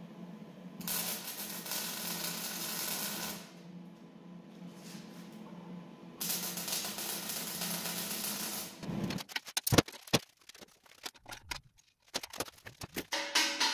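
Wire-feed (MIG) welder arc crackling on steel in two runs of about two and a half seconds each, with a steady low hum between them. Near the end, a string of sharp metal clanks and taps.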